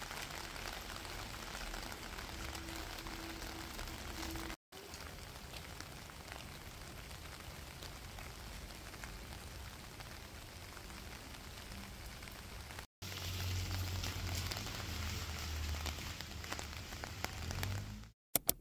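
Steady rain falling on wet pavement, a continuous hiss. In the last few seconds a low vehicle engine rumble joins it.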